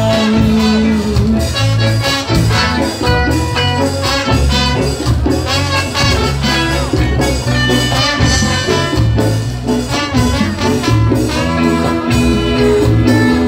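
Ska band playing live: a singer holds the last word of the chorus, then the horn section and band carry on with an instrumental passage over a steady beat.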